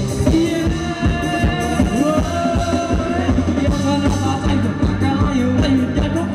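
Live band playing upbeat Thai ramwong dance music, with a steady drum beat under a held, wavering melody line.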